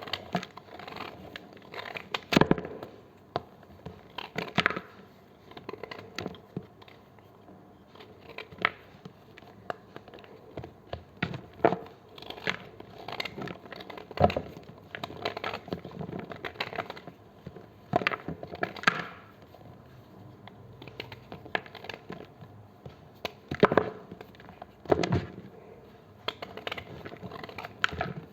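Knife cutting into blocks of gym chalk: irregular crisp crunches and cracks every second or two, with softer crumbling between.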